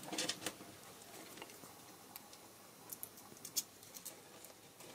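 Faint, scattered small clicks and light taps of screws and small plastic and metal RC parts being handled, a few louder ticks among them.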